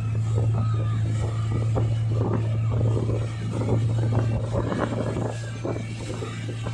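Towing motorboat's engine running at speed with a steady low hum, over the rush and splash of the churning wake.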